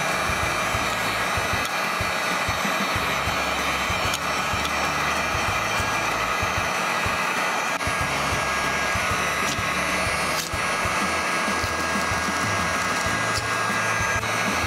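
ACE electric heat gun running steadily, its fan blowing hot air at a constant level, with background music underneath.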